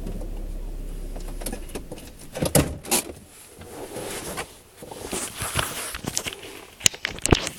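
Car rear suspension creaking, with irregular sharp knocks and creaks. A spring-like creak the owner cannot place. A steady low hum fades out in the first two seconds.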